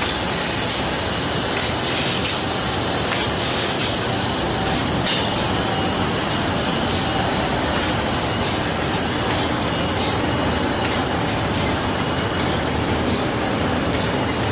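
Automatic paper bag making machine running at production speed: a steady, dense mechanical clatter with a high hiss over it and light clicks recurring throughout.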